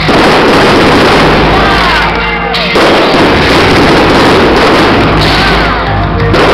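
Aerial fireworks shells bursting in a dense, continuous volley of bangs and crackling, loud enough to overload the recording, with music playing underneath. Falling whistles come about two seconds in and again near the end.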